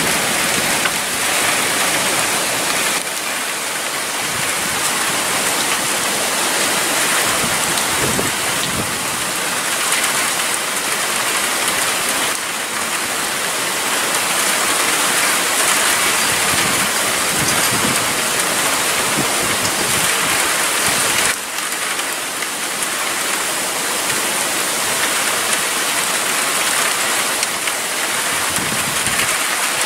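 Heavy rain falling steadily during a thunderstorm.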